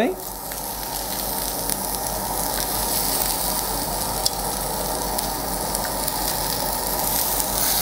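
Thick-cut pork belly sizzling on the hot non-stick plate of a WMF tabletop grill: a steady hiss with small scattered pops.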